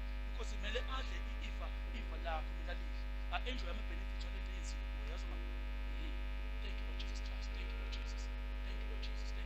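Steady electrical mains hum with faint, indistinct voices murmuring now and then.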